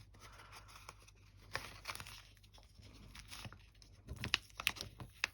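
Packaging of a cling stamp set being handled: faint crinkling and small clicks, sparse at first and busier for the last second or so.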